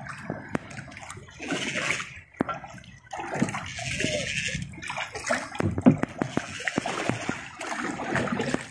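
Choppy sea water splashing and sloshing against a small outrigger boat's hull as it rocks in the waves, in irregular surges with scattered sharp slaps and knocks.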